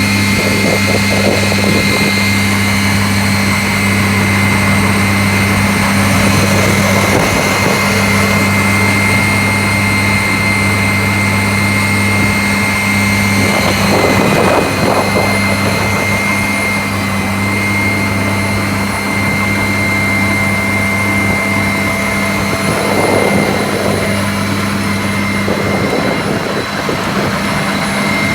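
Road milling machine running steadily as it mills asphalt: a constant engine drone with a steady high whine, rougher grinding swelling up briefly a few times.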